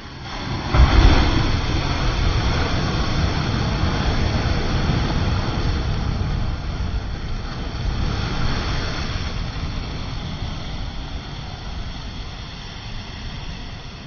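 Sea waves surging and breaking, with wind rumbling on the microphone. A wave swells up suddenly about a second in, another around two-thirds of the way through, and the sound eases off near the end.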